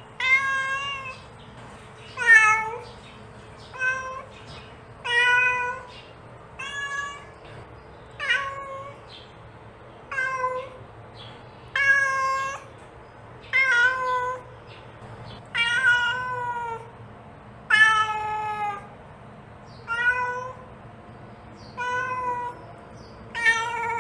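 A mother cat meowing over and over, calling her kittens: one meow every second and a half to two seconds, each under a second long, some falling in pitch at the end.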